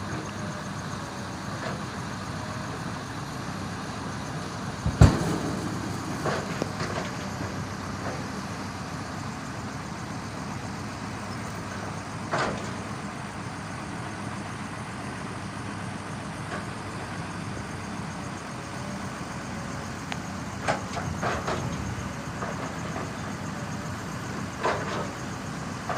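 Steady running noise of a truck, with one sharp loud knock about five seconds in and a few fainter knocks later.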